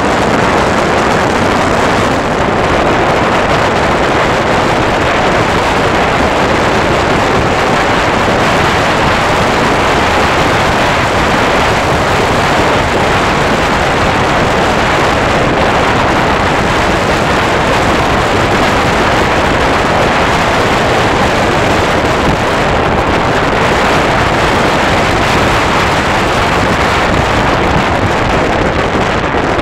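Steady, loud wind rush on the microphone of a moving motorcycle, with the motorcycle running underneath.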